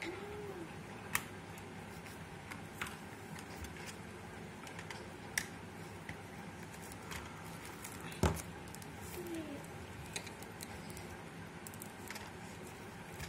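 Faint handling sounds of paper and a plastic glue bottle: scattered light clicks and taps over a steady low background hum, the loudest tap about eight seconds in.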